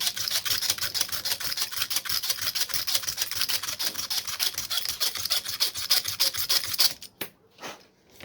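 Hand filing of the angle grinder's plastic switch parts: fast, even back-and-forth rasping strokes, about eight a second, to take a little plastic off so the sticking trigger moves freely. The filing stops abruptly about seven seconds in.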